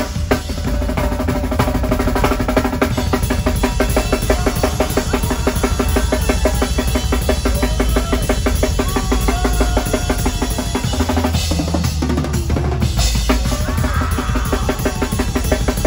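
Drum kit played hard and fast, heard close up: a rapid stream of bass drum strokes with snare hits and crashing cymbals, over the band's sustained pitched instruments. The bass drum pattern changes briefly about twelve seconds in, then the dense drumming carries on.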